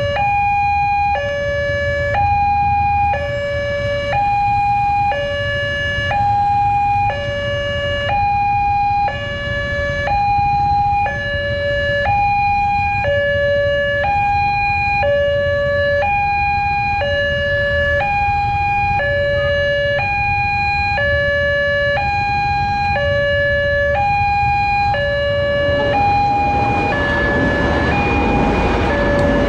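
Railway level-crossing alarm sounding its new two-tone hi-lo warning, a higher and a lower tone alternating about once a second. About 26 seconds in, the noise of a train passing over the crossing rises beneath it.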